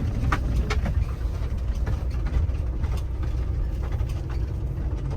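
Winnebago Revel 4x4 van driving on a rough gravel logging road: a steady low engine and road drone with scattered knocks and rattles, most of them in the first second.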